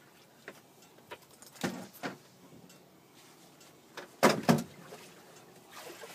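Light clicks and knocks of fishing gear being handled on a boat, with two sharp, loud knocks close together about four seconds in.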